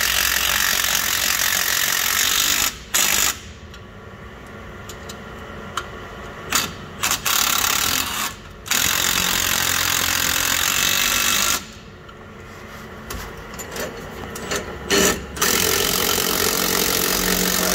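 Cordless Milwaukee impact wrench hammering the mounting bolts in, in bursts of one to three seconds with quieter pauses between.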